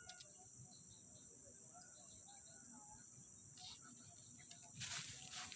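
Faint, steady high-pitched buzz of insects, with a brief rustle near the end.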